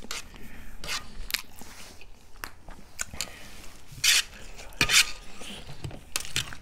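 Close-miked eating sounds from a mukbang: chewing and biting on chowmein noodles and buff meat, with irregular wet clicks and smacks. Two louder bursts come about four and five seconds in.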